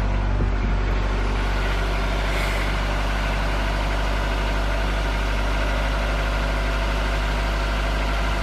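Honda car engine running steadily near idle in first gear, turning a jacked-up drive wheel.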